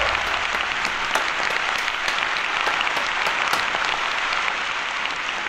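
Applause: dense, steady clapping from many hands, starting to fade near the end.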